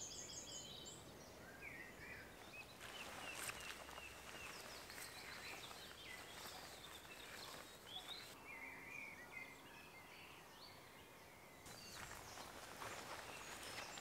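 Faint songbirds singing and calling in woodland: scattered short chirps and brief phrases, a quick run of high notes at the start and more calls about two-thirds of the way through, over a quiet open-air background with a few soft swishes.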